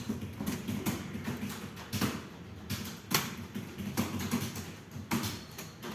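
Computer keyboard keys being typed on, an uneven run of clicks with a few louder key strikes.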